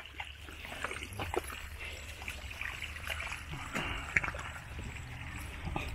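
Hands groping through shallow mud and water, with scattered wet squelches, sloshes and small splashes over a steady low hum.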